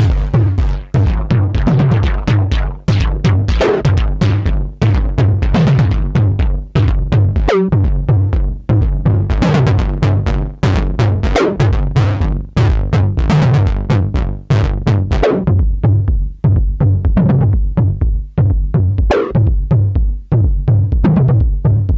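Modal Electronics CRAFTsynth 2.0 wavetable synthesizer playing a synth-drums patch: a steady repeating electronic drum beat of sharp hits over a deep bass pulse.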